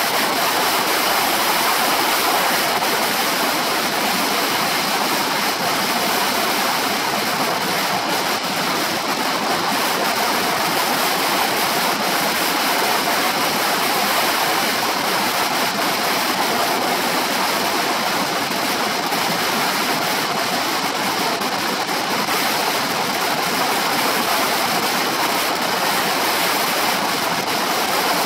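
Steady wind rushing over the microphone of a shoulder-mounted camera on a moving scooter: an even, unbroken rush of noise.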